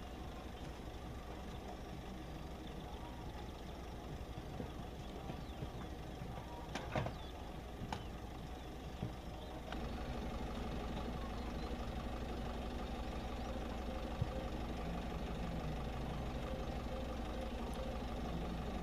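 A steady engine or machine hum, running evenly and a little louder from about halfway through, with a few light knocks.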